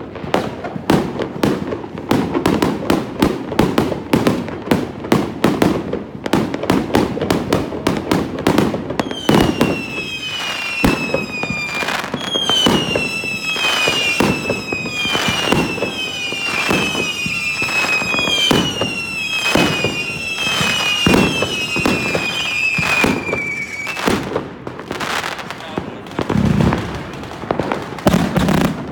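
A dense fireworks barrage: rapid crackling bangs and pops throughout. From about a third of the way in, a run of about a dozen short falling whistles from whistling fireworks joins them, roughly one a second.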